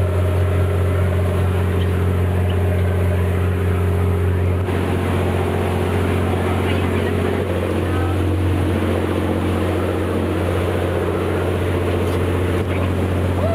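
Fishing cutter's engine running steadily under way: a constant deep drone with a low hum.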